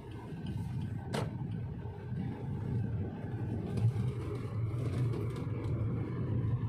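A car's engine running steadily with a low hum as the car drives off, with one sharp click about a second in.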